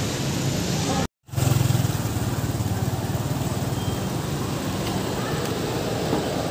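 Street noise with a motor vehicle engine running close by, a steady low hum. It drops out for a split second about a second in and comes back slightly louder.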